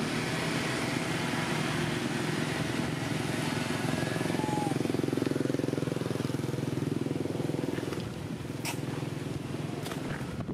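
A motor vehicle's engine running steadily, growing louder toward the middle and fading after about eight seconds. Two sharp clicks come near the end.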